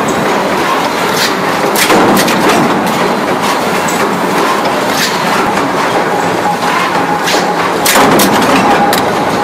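Steady loud din of a metal stamping workshop, mechanical punch presses running, with a few sharp metal clanks and knocks scattered through it as a die is clamped into a press.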